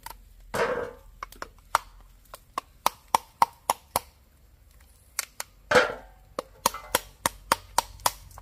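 A machete blade striking a dry coconut shell again and again, cracking it open: sharp knocks in quick runs of about three a second, with two louder cracks about half a second in and near six seconds.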